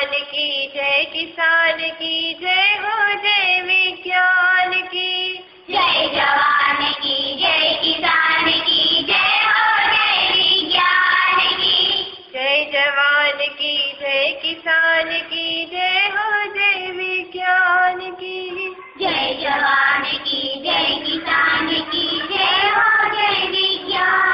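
A child's voice singing a Hindi poem set to a tune, with musical backing, in phrases separated by short breaks.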